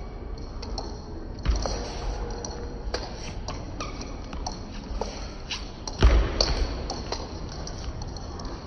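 Table tennis rally: the celluloid ball clicking off the bats and the table at an irregular pace, echoing in a large sports hall, with the loudest hit about six seconds in.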